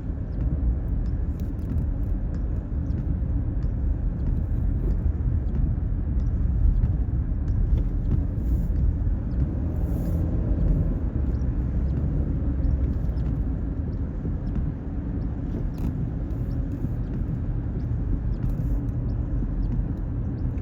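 Steady low rumble of a car driving, heard from inside the cabin: engine and tyre road noise at an even level.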